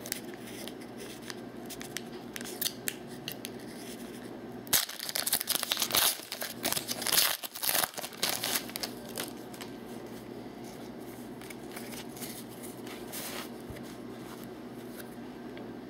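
Foil trading-card pack being opened: small snips and clicks at the top of the wrapper, then the foil wrapper crinkling loudly for about three seconds from around five seconds in as the cards are pulled out, followed by a few faint rustles of card handling.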